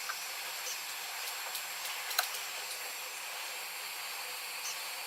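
Hot-air rework station blowing a steady hiss onto the motherboard while the controller chips are desoldered, with a few small clicks of metal tweezers, the sharpest about two seconds in.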